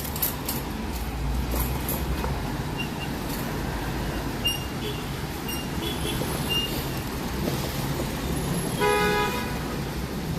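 City street traffic with a steady low rumble of passing vehicles, and a short vehicle horn toot about nine seconds in.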